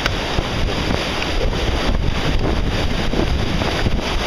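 Steady wind buffeting the microphone over the rush of choppy sea and breaking waves.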